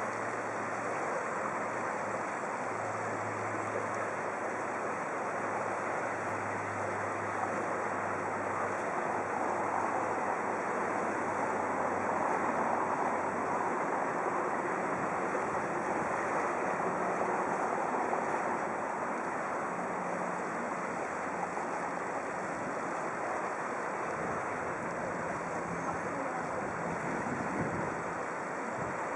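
The Elbe in flood, its high water flowing fast past the bridge in a steady, even rushing, with a faint low hum underneath.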